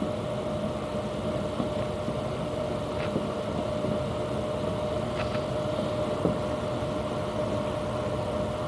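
Steady background hum with one constant mid-pitched tone, broken twice by faint brief squeaks.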